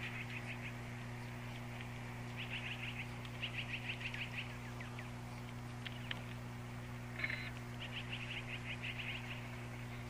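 Small birds calling in short bouts of rapid, high chirps, each bout about a second long, over a steady low hum.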